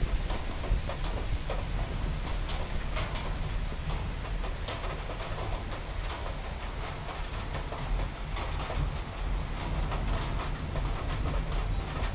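Rain falling in a summer thunderstorm, with sharp drops ticking close by over a steady low rumble.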